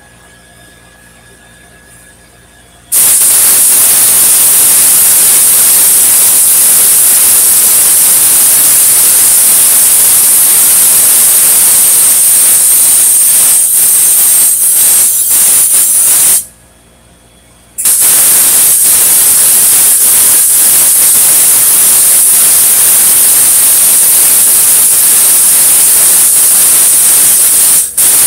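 Electric welding arc hissing and crackling steadily as a long bead is run on the steel propane tank. It stops for about a second partway through, then a second long run follows.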